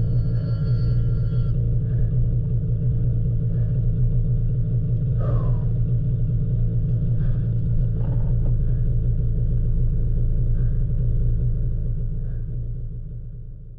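Snowmobile engine running steadily under way through powder snow, a constant low drone. The sound fades out over the last couple of seconds.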